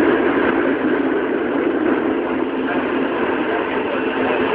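Tokyo Metro 03 series subway train with Hitachi chopper control running through a tunnel, heard from inside the car: a steady running noise of wheels on rail and motors, with the tunnel echo around it.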